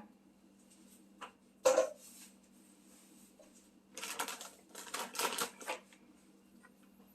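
Dishes and utensils being handled in a kitchen: a single knock, a short clatter, then a run of rapid clinking and clattering lasting about two seconds, over a steady low hum.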